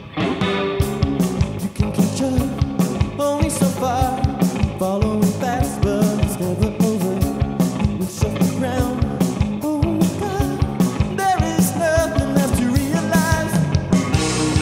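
A rock band playing live: drum kit with a steady beat and cymbals, electric bass, electric guitar and keyboard, the full band coming in together right at the start.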